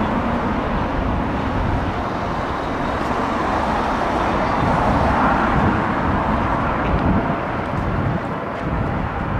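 Helicopter flying overhead, a steady engine and rotor noise that eases slightly near the end.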